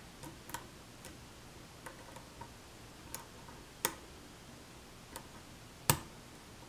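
Light, irregular metallic clicks of a hook pick working the pin tumblers of a six-pin challenge lock cylinder held under tension, as pins are lifted and set. About eight clicks come at uneven spacing, with a sharper one about four seconds in and the loudest a little before the end.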